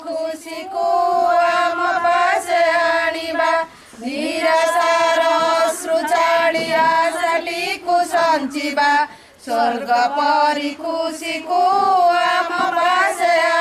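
A group of women singing together in unison, in long held phrases with short breaks about four and nine seconds in.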